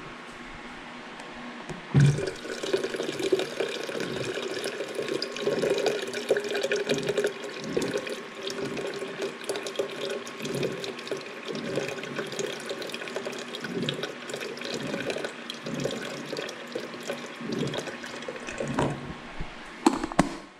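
Water running from a bottled-water dispenser's tap into a stainless steel electric kettle, a steady pour with irregular gurgles. A knock about two seconds in as the pour starts, and a couple more knocks near the end.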